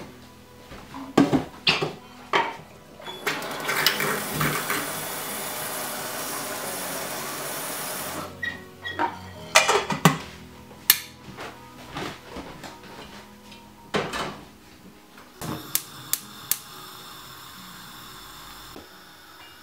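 Stainless steel kettle being handled: metal clanks, then water running into it for about five seconds, more clanks as it is set down on the gas stove's grate. Near the end a few quick igniter clicks and the gas burner hissing as it lights.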